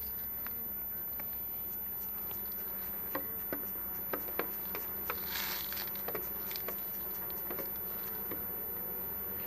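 Carpathian honeybees buzzing steadily around an open hive, with a scatter of light clicks and knocks in the middle few seconds.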